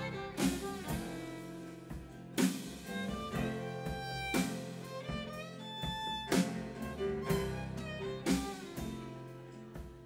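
Live folk band instrumental break: a fiddle plays the melody over upright bass and acoustic guitar, with a strong accent about every two seconds.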